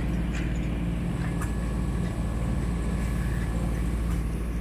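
A Colvic Sea Rover sailboat's inboard engine running steadily under motor, a constant low drone, with a few faint clicks over it.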